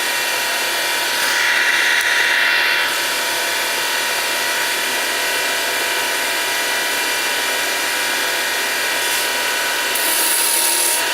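Homemade wood lathe running at top speed, its 180 W motor driven through a frequency converter with a steady whine and turning the spindle through a belt, while a turning chisel cuts the spinning wood, louder in a pass between about one and three seconds in and again near the end. The motor takes the cut without bogging down.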